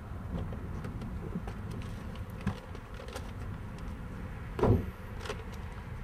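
A car door is opened with a few light clicks and rattles, then a short, louder thump about three-quarters of the way through, over a steady low background rumble.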